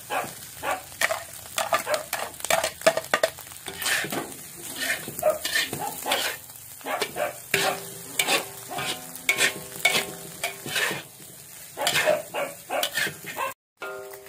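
A metal spatula scraping and clanking against a large iron wok, several strokes a second, as fried rice is stir-fried and sizzles.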